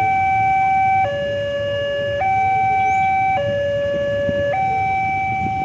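Railway level-crossing warning alarm sounding as the gates close: an electronic two-tone signal that swaps between a higher and a lower pitch about once a second, over a low background rumble.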